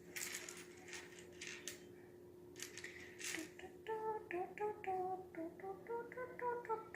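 Small plastic Lego pieces clicking and rustling as they are handled. About four seconds in, a girl starts singing a quick tune in short syllables, the notes stepping up and down.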